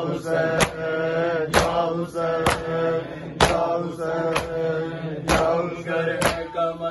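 Matam: mourners' hands striking their chests together about once a second, sharp even slaps over men's voices chanting in sustained, steady notes.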